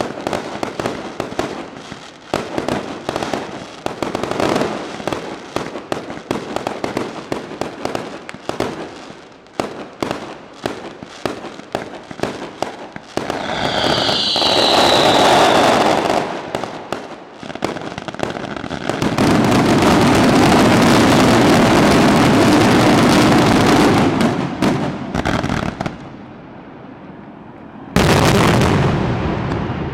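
Fireworks display: rapid bangs and crackles, then about 13 s in a hissing rush with a whistle. From about 19 s a dense, continuous barrage of explosions runs for several seconds, and a sudden loud burst comes near the end.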